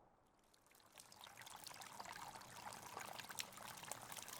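Faint trickling and dripping of meltwater, fading in about a second in and building gradually, with many small separate drips.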